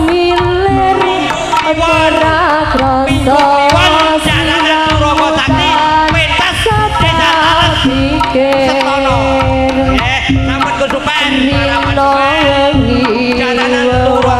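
Live Javanese jaranan music played loud through a sound system: steady hand-drum (kendang) beats under sustained, wavering melody lines.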